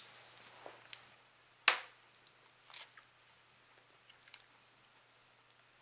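Wrapper of a small caramel candy crinkling as it is unwrapped by hand, with one sharp crackle about two seconds in as the loudest sound and a few fainter crinkles after.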